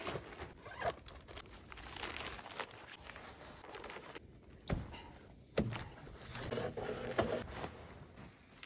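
Tent fabric and a padded ground mat rustling and crinkling as they are handled and set up, with scattered clicks and a few dull knocks.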